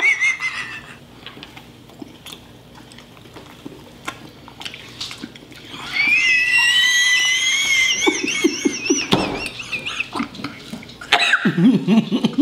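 A person's high-pitched, wavering whine of disgust while forcing down a mouthful of food, starting about halfway through and lasting about four seconds, followed by lower groans and muffled mumbling near the end.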